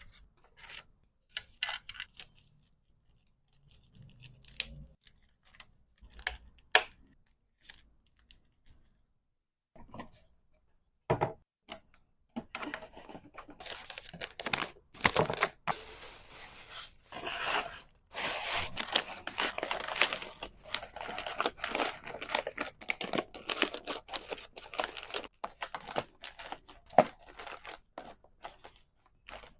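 Hands packing small items in packaging material: scattered taps and clicks, then from about twelve seconds in, a long stretch of tearing and crinkling.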